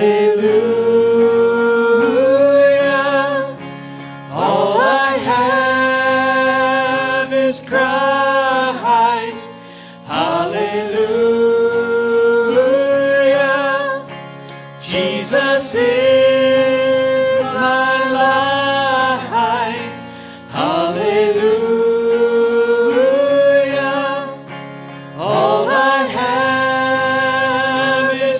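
Live church worship band playing a slow gospel song: voices singing over electric guitar, in sung phrases a few seconds long with short breaks between them.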